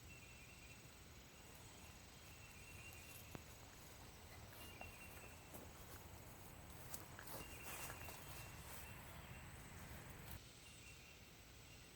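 Near-quiet outdoor ambience with faint insects chirping in short repeated calls, and a faint hiss in the middle that stops abruptly near the end.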